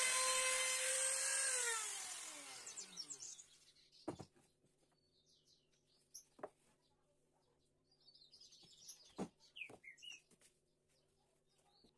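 Wesco trim router running steadily, then switched off and winding down over about two seconds, its pitch falling. After it stops, a few light knocks from the wooden box being handled and set down, with birds chirping.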